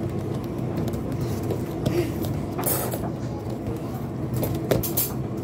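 A football being kicked and thudding about on a wooden floor, with a few sharp knocks, over a steady low mechanical hum.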